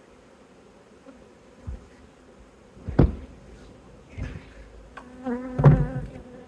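Honeybees buzzing around an open hive, with one bee flying close and giving a loud, steady pitched buzz for the last second and a half. A few sharp knocks, the loudest about three seconds in.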